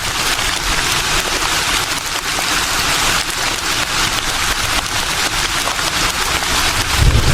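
Leaves rustling in a steady breeze: a dense, even hiss full of fine crackles. Right at the end a low rumble comes in under it.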